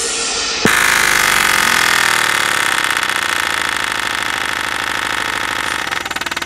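Cheap 5.5-inch midrange speaker overdriven far past its rating, blaring a harsh, rattling distorted buzz that cuts in suddenly about half a second in: the cone and voice coil are being driven to destruction.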